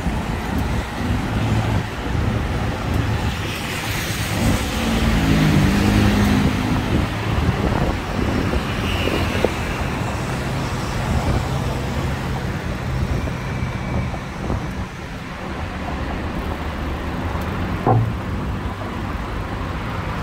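City road traffic: motor vehicles running past with steady engine and tyre noise. A deeper engine drone from a passing heavier vehicle comes in about four seconds in, and there is one short knock near the end.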